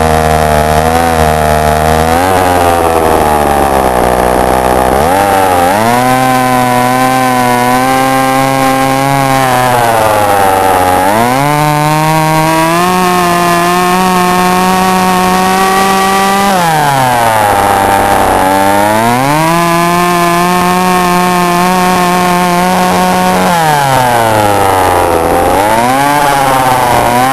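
Sachs Dolmar 120 Super two-stroke chainsaw running: it starts near idle, then is revved up about four times, each time held steady at high speed for a few seconds before dropping back toward idle.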